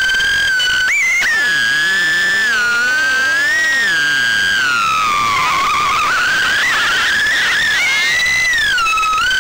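Mobula 6 HD tiny whoop drone's brushless motors whining in flight, heard through its own onboard camera. The pitch jumps up sharply about a second in as the throttle is punched for a climb, then falls and rises again with the throttle, dipping lowest around the middle.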